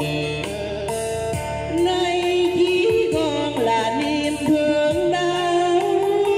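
Older woman singing a Vietnamese bolero song into a handheld microphone over a karaoke backing track, holding long notes with vibrato.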